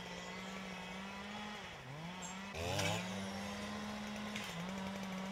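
A two-stroke chainsaw running at high speed, its pitch dipping briefly a few times. About two and a half seconds in, a second, lower engine note joins and the sound grows louder.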